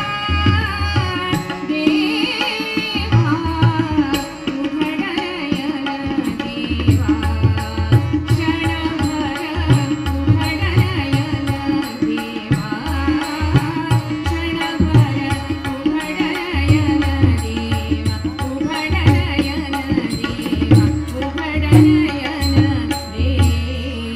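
Live Indian devotional song: women's voices singing to the beat of a tabla-style hand drum playing in a steady rhythm, over a held accompanying note.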